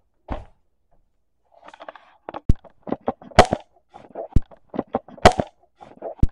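Irregular knocking and clicking, with three loud sharp cracks about two seconds apart standing out among them.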